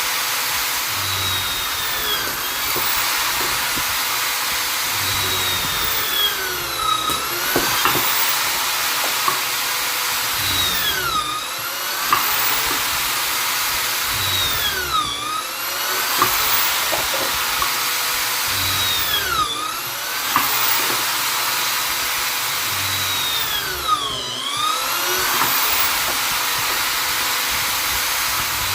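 Vonder electric drill-driver running continuously with a loud high whine. About every four seconds its pitch dips sharply and then climbs back up.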